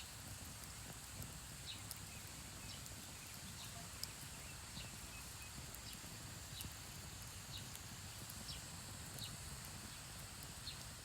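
Small wood campfire crackling, with scattered sharp pops and ticks over a low, steady rustle.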